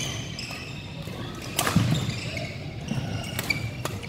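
Badminton match play on an indoor court: sharp racket hits about a second and a half to two seconds apart, with short shoe squeaks on the court floor in between, over the low hum of a hall.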